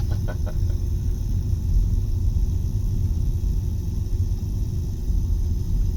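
Steady low road-and-engine rumble of a car driving, heard from inside the cabin, with a faint steady hum over it.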